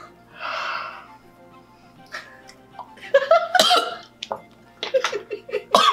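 A man gagging and coughing as he forces down a spoonful of baby food, in short irregular throaty heaves that grow louder about halfway through, over quiet background music.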